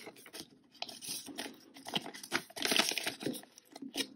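Clear plastic binder pocket and polymer £20 banknotes rustling and crinkling as they are handled, in uneven bursts with a few sharp clicks.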